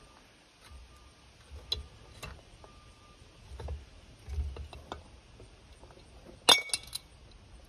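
Metal tools and small parts clinking and tapping against the case of a 1961 Johnson outboard as it is taken apart: scattered light ticks, then a sharp cluster of metallic clinks about six and a half seconds in.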